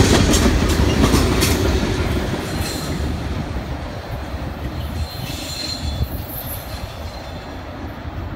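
Freight train's last cars rolling past, steel wheels clicking over the rail joints, then fading steadily as the train pulls away. A few faint high wheel squeals come through as it recedes.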